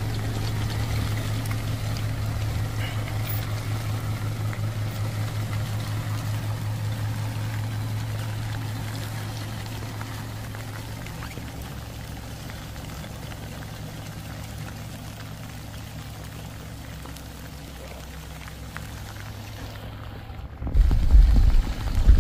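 Off-road 4x4's engine running at low revs, a steady low hum with a slight pulse that slowly fades over the first half. Near the end a sudden loud low rumble cuts in.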